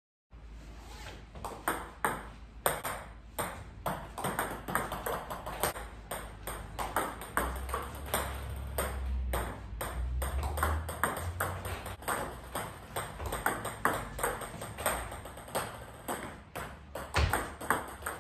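Table tennis ball clicking sharply again and again as it is served, struck by the paddle and bounces on the tabletop: a backspin serve and a topspin serve. A low rumble runs underneath partway through.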